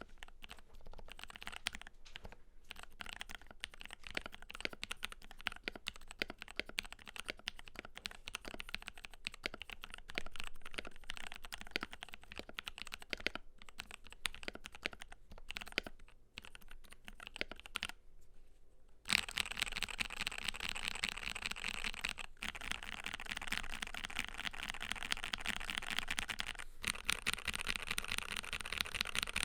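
Continuous fast typing on a Keydous NJ80 mechanical keyboard with a brass plate, lubed Durock Cerulean switches and Cherry-profile PBT keycaps. The keys clack in a dense run. A brief pause comes about two-thirds of the way in, and after it the typing is louder and denser.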